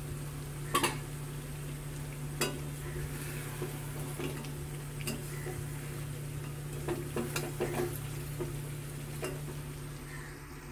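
A metal spatula stirring chicken curry and potatoes in a steel kadai, with irregular clinks and scrapes against the pan and the curry sizzling faintly underneath.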